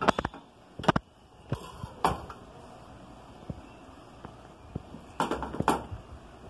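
A plastic serving spoon clacking and scraping against metal cooking pots and a ceramic plate as food is dished out: a few separate knocks in the first two seconds, then a quick cluster of them near the end.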